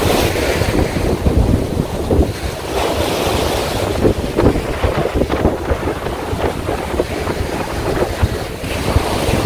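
Wind buffeting the microphone over the rush of waves breaking on a beach.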